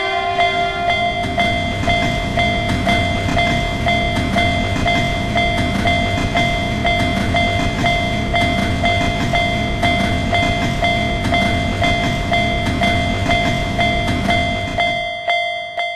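Japanese level-crossing warning bell ringing in an even, repeating pulse while a train passes with a low rumble, the sound fading away near the end.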